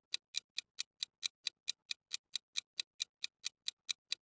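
Countdown-timer ticking like a clock, an even run of sharp ticks at about four and a half a second.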